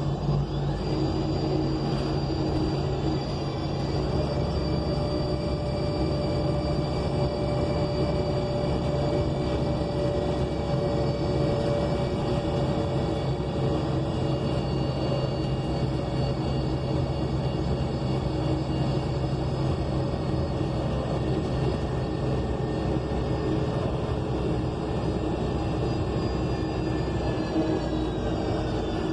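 Interior drone of a 2020 ENC Axess BRT bus under way, its Cummins Westport L9N natural-gas engine and Voith automatic transmission giving a steady low hum with a layer of high whine. Near the end the whine's pitch falls.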